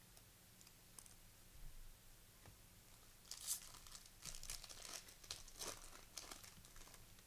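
Trading card pack wrapper crinkling and tearing open, a run of faint scratchy rustles starting about three seconds in.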